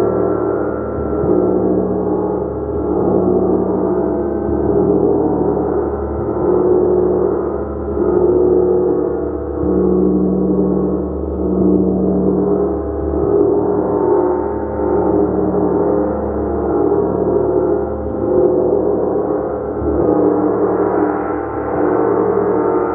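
A large gong played continuously, a dense, shimmering wash of many overlapping tones that swells and ebbs every second or two as it is struck again and again.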